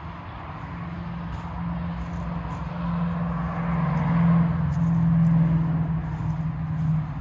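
A motor vehicle running with a steady low hum, getting louder toward the middle and easing off near the end.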